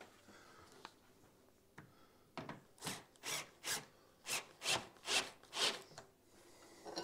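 About eight rasping, scraping strokes in a steady rhythm, roughly two to three a second, from a hand tool working at the wooden rail-to-newel-post joint, after a couple of faint clicks.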